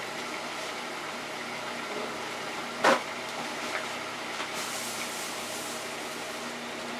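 Oil in a deep fryer sizzling steadily as french fries cook, with a single sharp knock about three seconds in.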